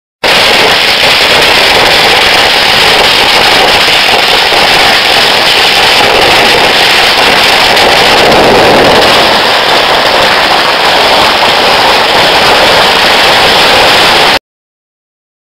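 A long string of Chinese New Year firecrackers going off in one continuous, dense rattle of bangs, very loud, starting abruptly and cutting off suddenly near the end.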